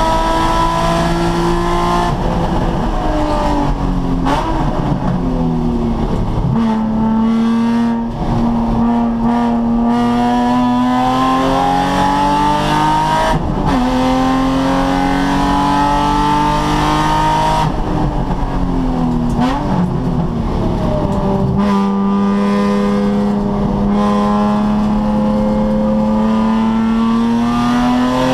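Nissan 350Z's V6 engine under hard acceleration on a track lap: its pitch climbs steadily through long pulls, then drops away several times as the car slows, with short throttle blips on the way down.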